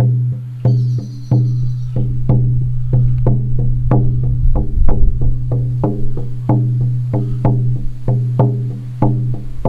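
A 14-inch deerskin shamanic frame drum with a beechwood frame, beaten with a firm beater in a steady rhythm of about three strokes a second. The strokes run together into a continuous low ringing hum beneath the sharper attack of each hit.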